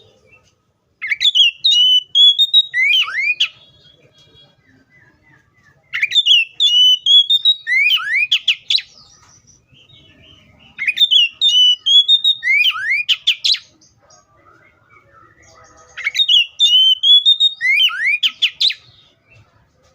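Oriental magpie-robin singing: the same loud whistled phrase, a run of rising notes followed by several downward-sliding notes, repeated four times about every five seconds, with soft quiet notes in between.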